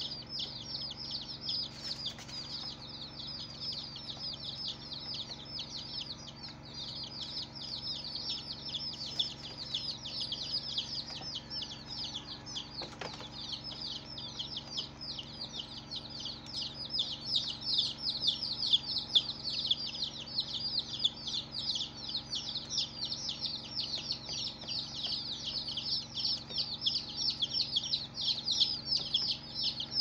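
A crowd of day-old baby chicks peeping without a break, many short, high calls overlapping one another; the peeping gets louder in the second half.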